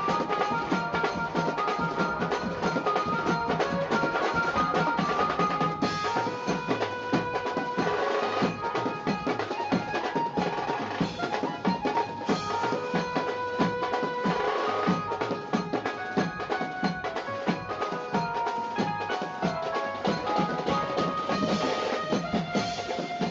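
Background music with a busy drum rhythm under a melody.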